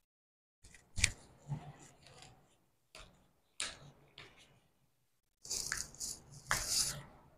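Handling sounds during a hands-on chiropractic treatment: five or so short, sharp clicks and knocks spread over a few seconds, then about a second and a half of rustling hiss near the end.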